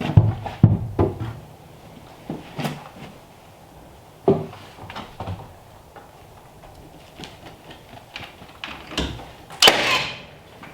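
Irregular knocks and thumps, a few strong ones at the start and sparser ones after, then a louder noisy scraping burst near the end lasting about half a second.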